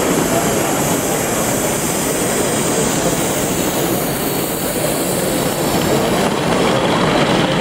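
Large-scale model train of open wagons rolling along the track, a steady running noise of wheels on rail.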